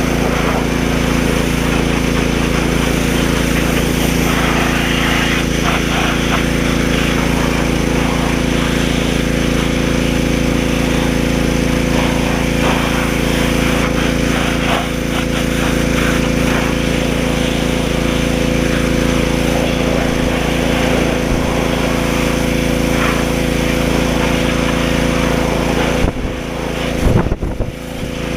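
Pressure washer running steadily, its motor humming under the hiss of the water jet, cutting out briefly near the end before starting again.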